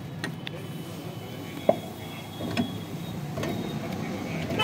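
A few light knocks and clicks as a wheel is handled and offered up onto an e-rickshaw's rear hub studs, over a steady low background hum.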